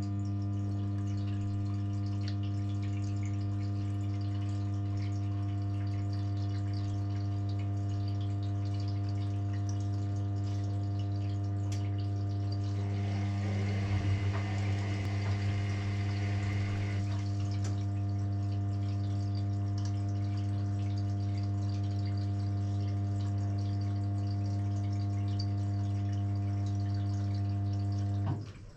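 Washing machine pump, likely the drain pump, switching on with a steady electric hum and running for nearly half a minute before cutting off suddenly. About halfway through, a few seconds of water rushing and slurping are heard over the hum.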